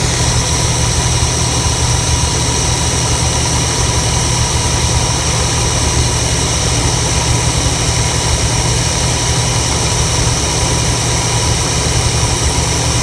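1992 Chevrolet 454 SS pickup's 7.4-litre big-block V8 idling steadily.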